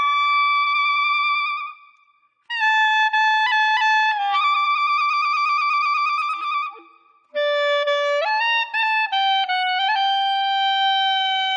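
Background music: a solo wind instrument playing a slow melody of long held notes, in three phrases with short pauses between them.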